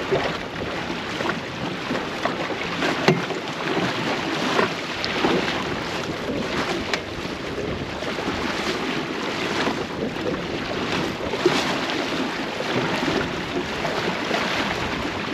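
Water splashing and rushing along the hull of a small sailing dinghy under way, with uneven slaps of small waves and wind buffeting the microphone.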